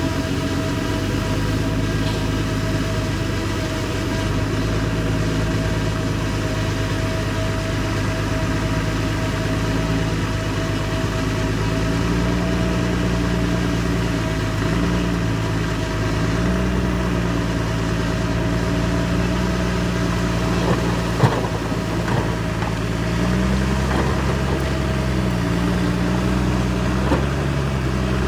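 Bulldozer diesel engine running steadily, then rising and falling in pitch again and again through the second half as it takes load while pushing soil, with a steady high whine over it and a single sharp knock about three-quarters of the way through.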